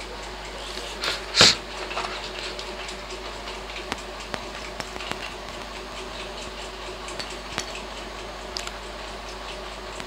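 Small taps and clicks of soldering work on a microwave magnetron's filament terminals, as the iron and solder wire are handled against the metal housing, with one louder knock about a second and a half in.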